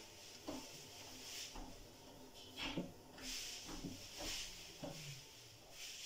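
Front-loading washing machine tumbling a load of laundry in its wash cycle. The drum turns slowly, the laundry drops with a soft thump about once a second, and there is a swishing sound between the drops.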